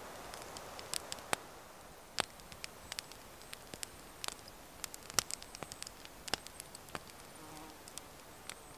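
Small wood campfire crackling: irregular sharp snaps and ticks over a quiet background, with a faint high insect buzz now and then.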